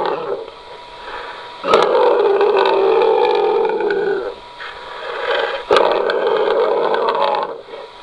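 Homemade dinosaur roar sound effect made from a human voice that has been altered: two long, rough roars, the first about two seconds in and the second about six seconds in, each starting with a sharp click.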